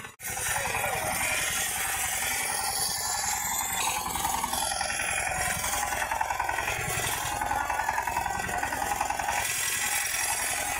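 Walking tractor's engine running steadily, its firing a fast even beat, as the operator works it through the field.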